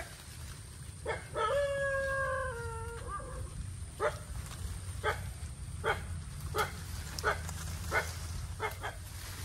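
A dog gives one long howl of about two seconds, its pitch sagging slightly at the end. It then barks again and again, roughly once every second or a little faster.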